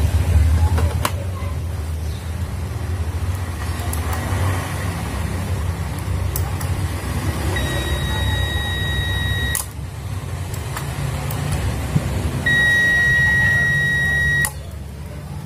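Prolink UPS running off an external DC supply in place of its battery: its inverter transformer gives a steady low hum, and its buzzer sounds two long beeps of about two seconds each, the second louder. Each beep cuts off with a click as the hum briefly drops.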